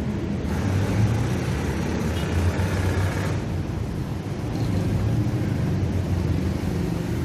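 Road traffic: a steady low rumble of car and bus engines close by.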